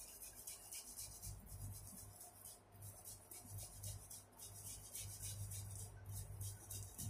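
Boiled potato grated on a small handheld metal grater: faint, quick, repeated scraping strokes.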